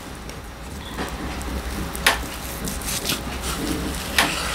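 A few short knocks of a kitchen knife against a cutting board while trimming a block of seared bonito, the clearest about two seconds in and just after four seconds, over a low steady hum.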